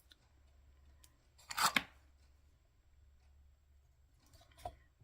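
Cardstock being handled on a craft table: one short papery scrape about a second and a half in, then a light tap near the end.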